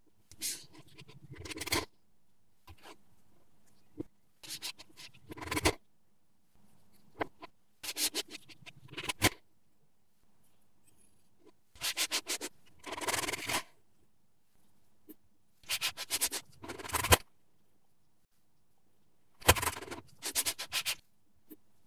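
Kinetic sand being cut, scraped and pressed with a blade and a cookie cutter, giving bursts of gritty, crumbly scratching of a second or two every few seconds.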